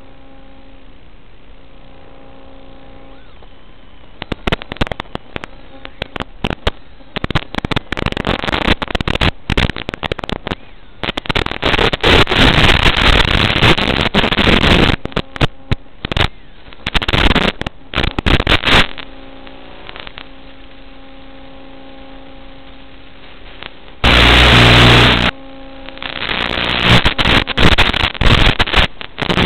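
Audio channel of an analog FPV video receiver: a steady hum with a few faint tones, then from about four seconds in crackling, clicking static in irregular bursts. It swells to a loud hiss in the middle and gives one solid blast of noise about five seconds before the end, as the video link breaks up.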